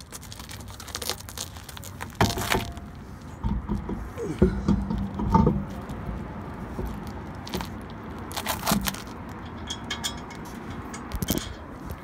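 Spare wheel being lifted and fitted onto a car's hub and wheel studs: scattered knocks, thuds and metallic clinking.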